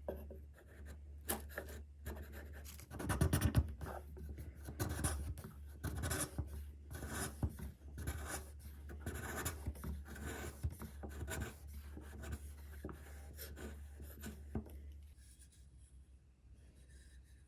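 Hand woodworking tool scraping and rubbing on wood in short, irregular strokes over a steady low hum, dying away about fifteen seconds in.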